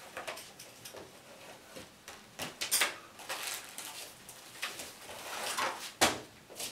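A cardboard chess set box being unpacked: the lid lifted off, a plastic bag of pieces and a folding board pulled out, giving scattered rustles, scrapes and light knocks. A sharp knock about six seconds in.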